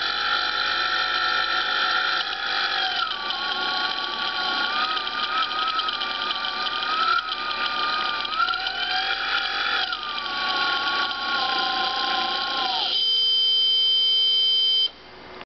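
Small brushless motor driven by the Open-BLDC controller under sensorless commutation, whining with a clear pitch that rises and falls as its speed shifts. Near the end the motor winds down. A steady electronic tone follows for about two seconds and cuts off suddenly.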